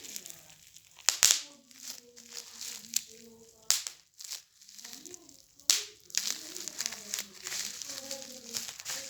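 Plastic being popped and crinkled for satisfying sound: a few loud sharp pops among a steady run of smaller crackles.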